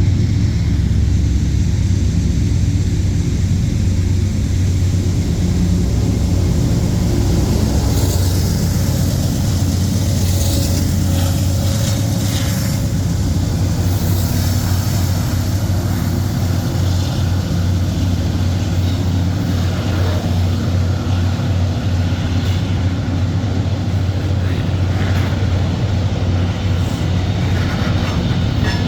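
CSX freight train with diesel locomotives running, a loud steady low engine rumble, with sharper metallic rail noises between about 8 and 13 seconds in.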